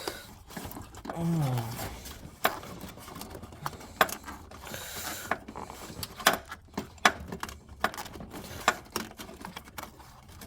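Scattered clicks, knocks and rustling from hands working a hood release cable through a cramped engine bay, with a short falling grunt about a second in.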